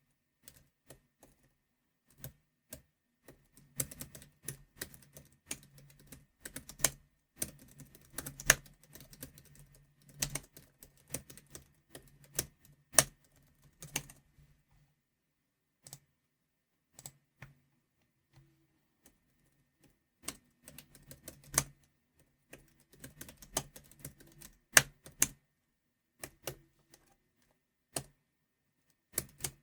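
Typing on a computer keyboard in quick runs of keystrokes, with a few single strokes much louder than the rest. Halfway through the typing stops for several seconds, leaving only a few stray clicks, then starts again.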